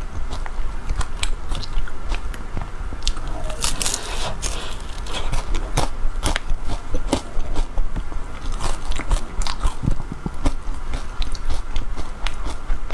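Close-miked eating sounds of a matcha ice-cream cone: many small wet mouth clicks, licks and soft bites, with a denser, hissier stretch about four seconds in.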